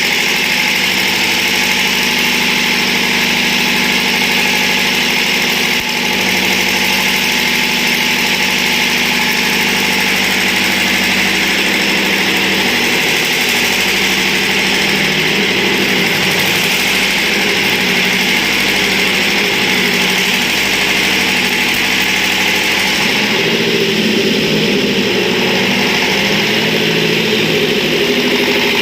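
Diesel engine of a 200-amp welding generator running steadily, its note shifting slightly about two-thirds of the way through.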